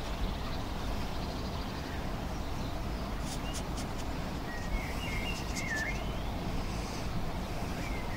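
Steady outdoor background rumble with a small bird chirping a few short calls about five to six seconds in.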